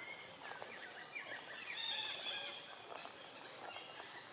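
Long-tailed macaques calling: a run of short, high-pitched squeals that is busiest about two seconds in.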